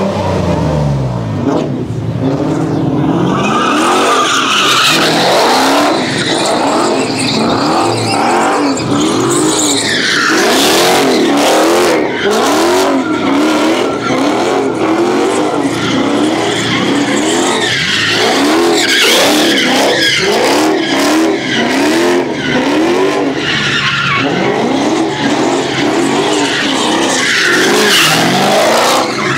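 Dodge muscle car V8 drifting, its engine note rising and falling rapidly over and over as the throttle is worked, with tyres squealing and skidding.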